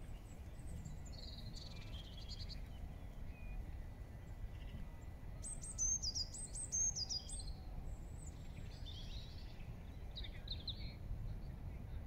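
Blue tits calling: thin, high notes, with a quick run of about six sharp, falling notes around the middle. A steady low background rumble runs underneath.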